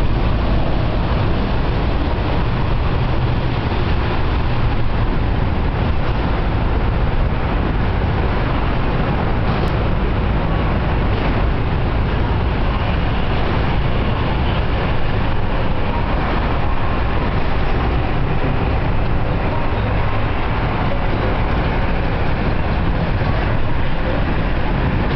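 Steady traffic noise from the elevated Interstate 70 highway overhead, heard from beneath the overpass.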